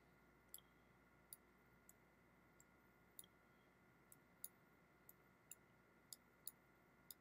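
Near silence broken by faint, irregular clicks, about a dozen, from a stylus tapping a tablet screen while digits are written on a digital whiteboard.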